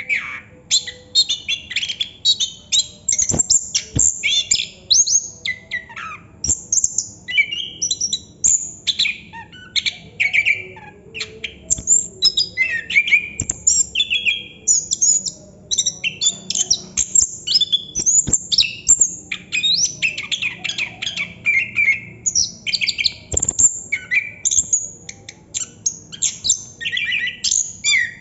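Chestnut-capped thrush (anis kembang) singing a continuous, non-stop roll of rapid, varied high chirps and whistled phrases with barely a break.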